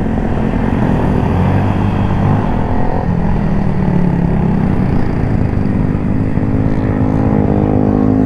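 Honda Click single-cylinder automatic scooter engine running under way. Its note dips about three seconds in and rises again near the end.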